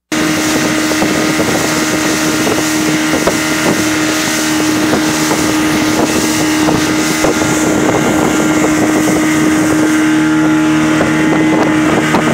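Outboard motor of a small boat running steadily at cruising speed, a constant drone, with wind buffeting the microphone.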